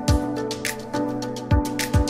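Background music with a beat of deep drum thumps and sharper hits over held chords.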